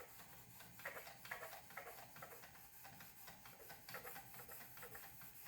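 Faint, quick strokes of a fine-grit sharpening stone on a Wicked Edge guided sharpener rubbing along a thin kitchen knife's edge, about two strokes a second.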